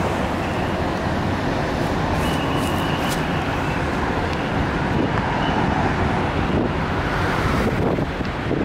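Road traffic on a busy city street, a steady mix of buses and cars passing, with wind buffeting the microphone.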